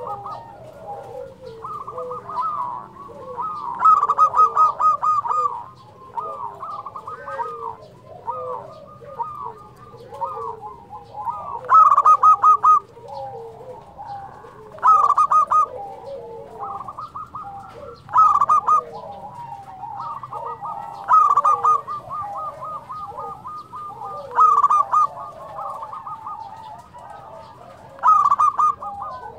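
Several zebra doves (perkutut) cooing at once in overlapping staccato phrases, with a louder, rapid trilled call every few seconds. These are lively, prolific-singing local birds used as a lure to set other zebra doves calling.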